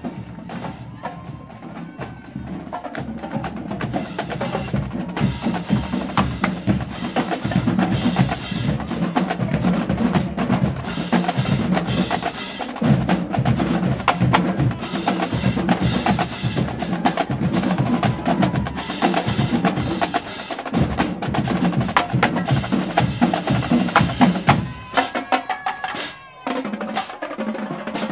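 Marching band drumline (snare, tenor and bass drums) playing a fast street cadence, building in loudness over the first few seconds. Near the end it thins out to a few separate hits.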